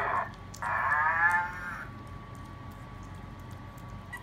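Young Maltese puppy whining: one cry ends just after the start, then a second, longer whine of about a second and a half follows, its pitch dropping slightly at the end.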